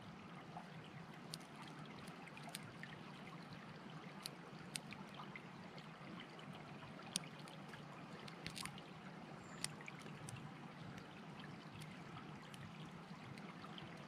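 Faint, steady rushing of a mountain stream, with occasional small sharp clicks from a lock pick working the pins of a 4-pin Brinks brass padlock.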